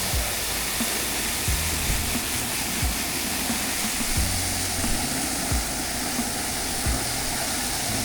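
Garden hose water running steadily with a hiss, filling a container to dilute cleaner. Background music with a low beat about every second and a half plays under it.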